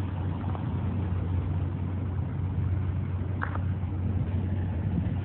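MBTA diesel commuter train passing: a steady low engine drone with rolling rumble and rattle. A short higher-pitched squeak stands out about three and a half seconds in.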